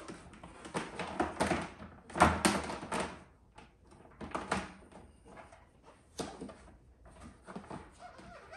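Hard plastic seat and cover of a portable bucket toilet knocking and clattering as they are worked together at the hinge to snap them into place. A run of short knocks, the loudest a little over two seconds in, with a few lighter ones after.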